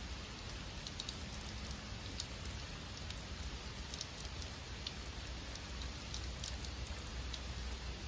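Steady rain falling on wet rock and foliage, an even hiss with scattered sharp ticks of individual drops.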